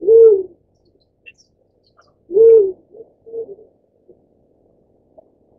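Black-chinned fruit-dove cooing: two low hooting notes about two seconds apart, each rising and then falling in pitch, followed by a few softer, shorter notes.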